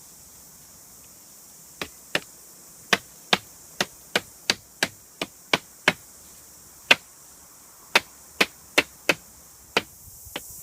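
Chopping strikes on wood: about eighteen sharp, separate blows starting about two seconds in, two or three a second with a few longer pauses.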